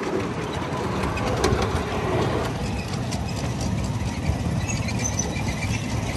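Steady rumble and rattle of a small ride-on train moving along, with scattered clicks.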